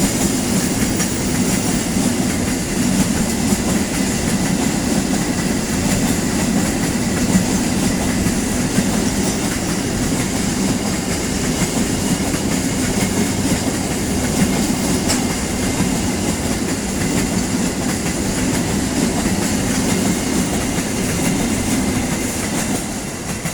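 Long passenger train passing at speed, its cars rolling by in a steady, loud rush of wheel and rail noise that starts to drop away at the very end.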